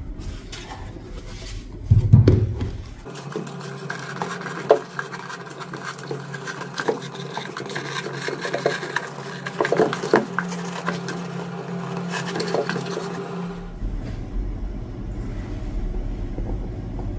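Hands handling a wooden subwoofer enclosure: knocks, taps and scrapes against the box and rustling of the fibre wadding inside it, with a heavier low thump about two seconds in, over a steady background tone.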